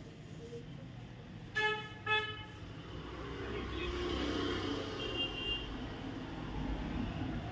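A vehicle horn beeps twice, short and about half a second apart, over a steady low rumble of road traffic that grows a little louder after a few seconds.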